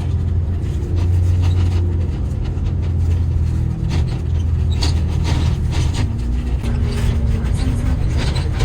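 Steady low engine hum of a moving road vehicle, with scattered light clicks and rattles.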